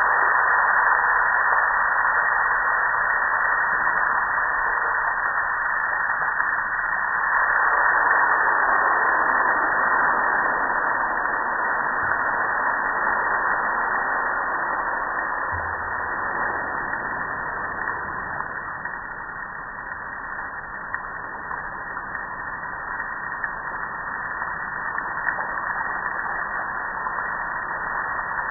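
Water spraying onto a gas grill, a steady hiss that grows louder and then eases off.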